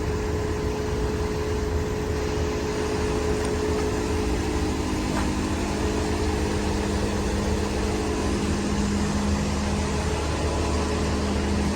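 Steady drone of heavy machinery running. A humming tone in it drops lower in pitch about halfway through.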